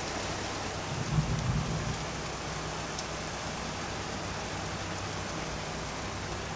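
Heavy rain falling steadily, with a brief low rumble of thunder about a second in.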